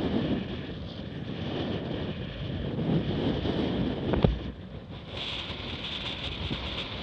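Wind buffeting the microphone over water rushing and splashing along a Laser Radial dinghy's hull as it sails through chop, with a sharp slap about four seconds in. The water hiss turns brighter from about five seconds in.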